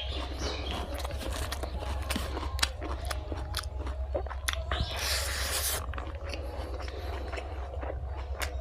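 Close-miked chewing and biting of fried pork with rice: a run of wet mouth clicks and small crunches, with a short breathy hiss about five seconds in, over a steady low hum.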